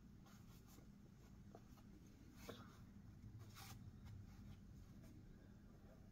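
Near silence: room tone with a few faint, short clicks or rustles.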